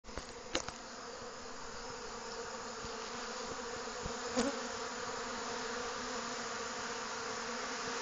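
Honey bees buzzing in a dense, steady drone at a hive entrance, the crowded buzz of robber bees fighting their way into a weak hive during a nectar dearth. A few sharp clicks sound about half a second in and again just past four seconds.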